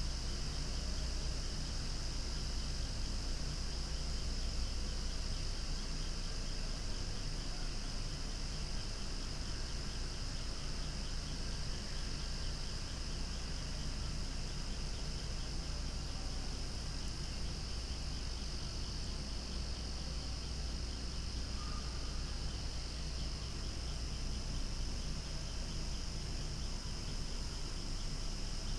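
Cicadas singing in a loud chorus, an unbroken high-pitched drone that never lets up, over a steady low rumble.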